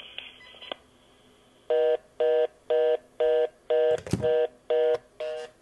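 Keypad tones from a VTech CS6124-11 cordless phone handset being dialed: eight short two-tone beeps, about two a second, starting a couple of seconds in. A single knock comes near the middle.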